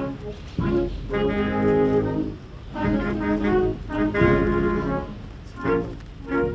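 Brass music playing slow, held chords in phrases of about a second and a half each, with short breaks between them.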